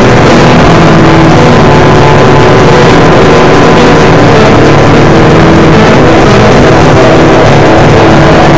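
Very loud, distorted noise music: a dense, unbroken wall of harsh buzzing noise over steady low drones, with no beat or melody.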